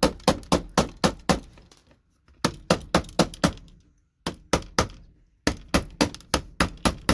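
Rapid hammer strikes on a tool wedged under the connectors of a circuit board, knocking the gold-pin connectors off. Runs of sharp blows, about four a second, come in four bursts with short pauses between them.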